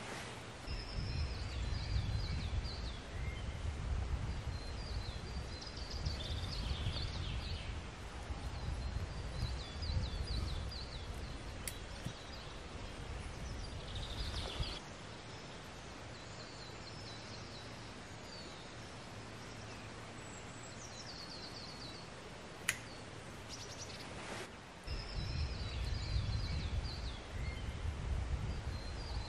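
Songbirds singing in woodland, short trilling phrases repeated again and again, over a low rumbling noise that drops away for about ten seconds in the middle and then comes back. One sharp click sounds about three-quarters of the way through.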